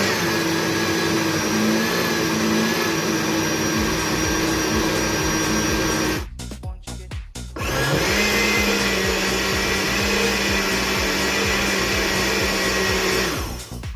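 Blender motor running twice, about six seconds each, with a short stop between, each run spinning up quickly and then holding a steady pitch. It is churning a thick mix of boiled breadfruit, okra and raw peanuts, run in bursts so as not to overwork the motor.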